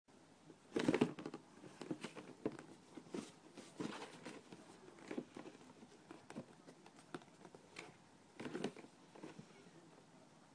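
Irregular soft taps and scratches on a cardboard shoebox, with a few louder clusters of knocks about a second in, near the middle and near the end.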